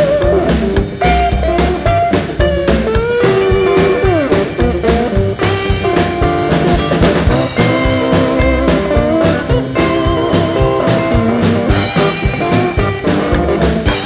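Recorded rock band song: electric guitar over a steady drum-kit beat.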